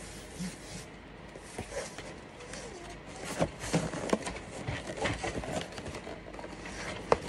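Cardboard shoe box being handled: scattered knocks, scrapes and rustles, with one sharper knock near the end.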